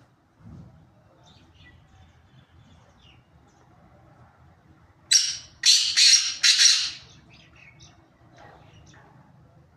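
Black francolin calling: one loud, harsh, grating call of four rasping notes, starting about five seconds in and lasting about two seconds. A few faint short chirps come before and after it.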